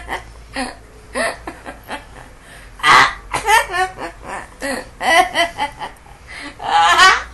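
A woman laughing hard in a string of short bursts, loudest about three seconds in and again near the end.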